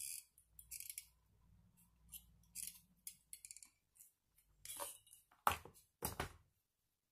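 Scissors snipping: a run of short, sharp cuts, with the two loudest near the end.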